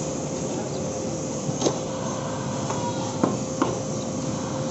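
Three sharp knocks on a work table as a knife and stacks of thin rumali roti wrappers are cut and squared, over a steady background hum.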